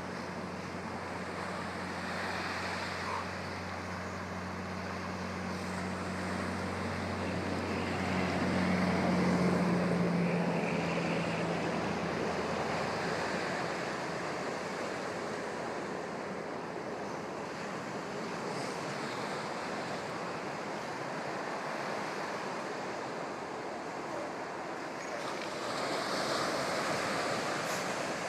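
Ocean surf washing onto a beach, swelling and easing as waves come in, with wind buffeting the microphone. A low steady hum lies underneath for the first ten seconds or so, then fades out.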